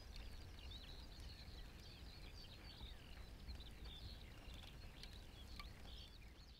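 Faint meadow bird chorus: many small songbirds singing at once, a steady tangle of short high chirps and trills, over a low rumble.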